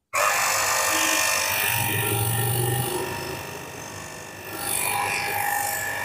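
Cordless 48V lithium-ion pressure washer gun running, its small motor pump whining steadily while the water jet sprays with a hiss. The sound starts abruptly, sags a little in the middle and rises again near the end.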